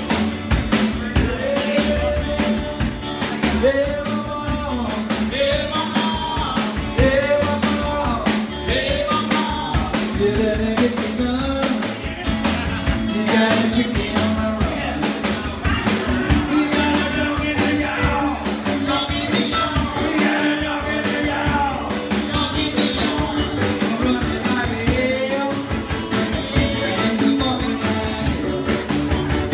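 Live band music: a man singing into a microphone over guitars.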